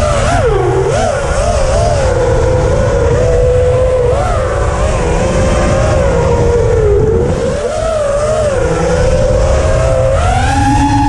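FPV racing quadcopter's motors whining, the pitch wavering up and down with the throttle and climbing sharply near the end. A heavy rumble of wind and prop wash sits on the onboard microphone underneath.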